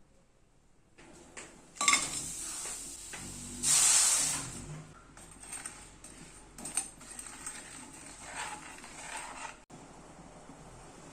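Kitchen work: dishes and utensils knocking and clinking, with a short hissing rush about four seconds in.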